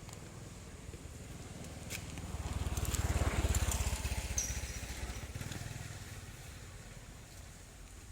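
A motor vehicle, likely a small motorbike, passes by: its engine grows louder, peaks about three seconds in, then fades away.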